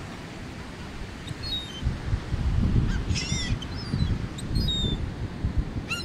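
Gulls calling: short high falling cries, with a harsher call with several overtones about three seconds in and another near the end, over a steady low rumble of wind and surf.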